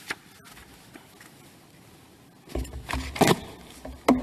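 Rustling and knocking at the lectern microphone as one advocate leaves and the next takes the podium. A single click comes first, then a quiet stretch. About halfway through, a cluster of rustles and knocks starts over a low rumble and ends in a sharp knock.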